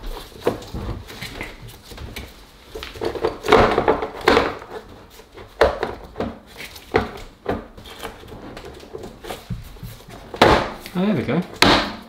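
A series of sharp plastic knocks and clicks as the drain pump housing of a Hotpoint Aquarius condenser tumble dryer is pushed and clipped back into place.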